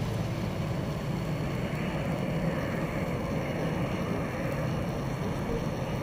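Steady airport apron noise: a low, even rumble of distant aircraft engines and ground equipment.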